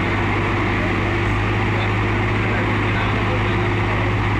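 Diesel engines of two tractors, a Swaraj and a Sonalika, running loud and steady as they pull against each other in a tractor tug-of-war.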